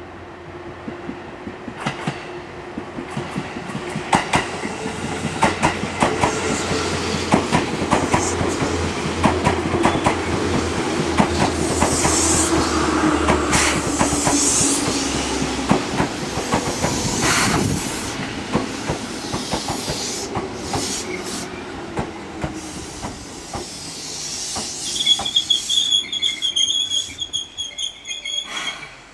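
Seibu 2000-series electric commuter train running into the station and braking to a stop. Its wheels click steadily over the rail joints under a low hum that slowly drops in pitch as the train slows. A high, steady brake squeal sets in near the end as it halts.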